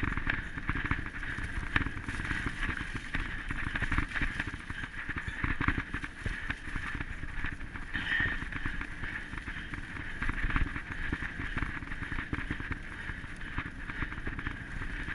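Running footfalls on a muddy trail, picked up by a body-mounted camera that jostles with each stride, under a steady hiss.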